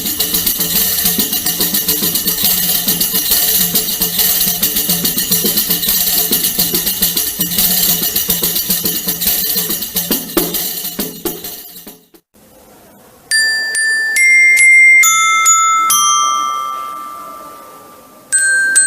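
Recorded musical instrument sounds in turn: about twelve seconds of a bright, rapidly repeated jingling instrument, then after a short gap a xylophone striking single notes that ring out one after another.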